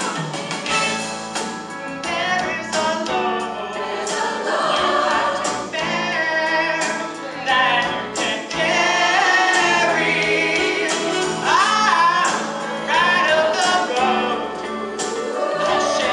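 High school mixed choir singing a gospel-style song, with a male soloist singing at a microphone over it.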